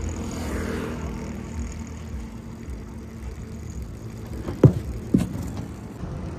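Tractor diesel engine idling steadily, with two sharp knocks near the end.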